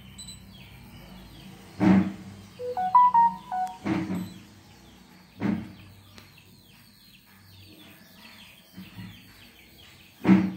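A short electronic jingle of several beep notes stepping up and down in pitch, about three seconds in, over faint background bird chirping; a few brief dull bumps land near two, four and five and a half seconds in and just before the end.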